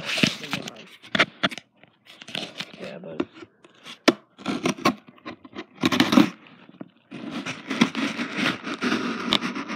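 A blade cutting and scraping at packing tape on a cardboard shipping box: irregular scratchy strokes broken by sharp clicks as the cardboard is worked open.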